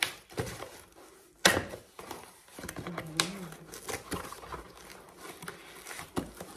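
Cardboard parcel being handled and worked open by hand: irregular rustling and crinkling with scattered small clicks, and one loud sharp rasp about a second and a half in.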